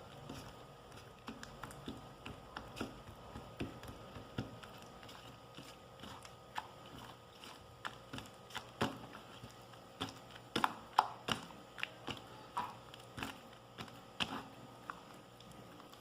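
Homemade slime made with massage gel being squeezed and poked by hand, giving irregular sticky clicks and small pops that come thickest and loudest about ten to eleven seconds in.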